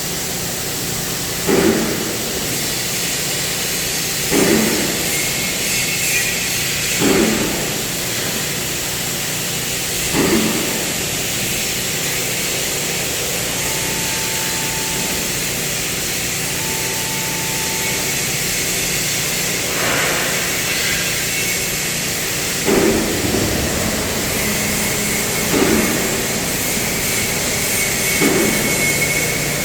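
CNC cutting machine at work: a steady hiss and hum with a short surge every few seconds, and two brief beeps in the middle.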